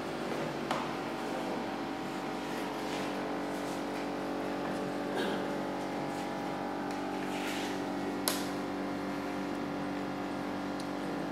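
A steady machine hum of several even pitches, with a few light clicks and taps from computer parts being handled on a desk, the sharpest click about eight seconds in.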